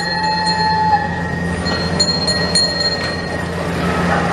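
Mini road train styled as a steam locomotive running slowly, with a steady engine drone. A held whistle-like tone stops about a second in, and a few sharp ringing dings come around two seconds in.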